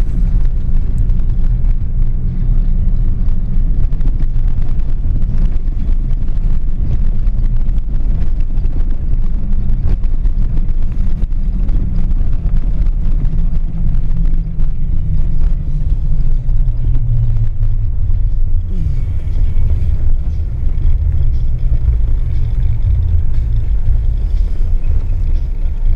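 Steady low rumble of a vehicle driving: engine and tyre noise with no sharp events.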